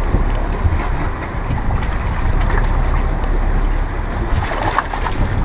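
Fishing boat running through choppy open sea: a steady rush of wind and water along the hull over a low rumble, with a few faint knocks.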